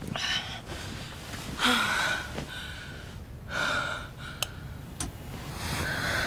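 A woman's heavy breathing: four breathy sighs, each about half a second long, coming every second and a half or so.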